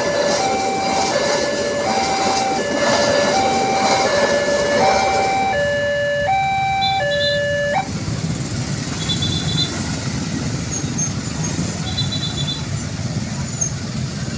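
Railway level-crossing warning alarm sounding an alternating high-low two-tone electronic signal, over a steady rumble of passing traffic or train. The alarm cuts off suddenly about eight seconds in while the rumble continues.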